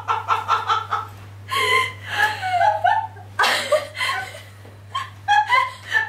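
A woman laughing in repeated bursts.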